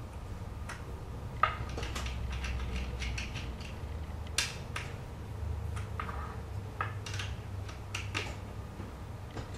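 Allen key working a bolt through the seat into the bench back: irregular small metal clicks and taps as the key is seated, turned and repositioned, two sharper clicks standing out about a second and a half in and just past four seconds, over a steady low hum.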